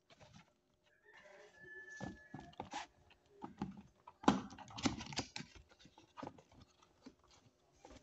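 Cardboard product box being handled and its top flaps opened: scattered knocks, scrapes and rustles, loudest about four seconds in. A rooster crows in the background about a second in.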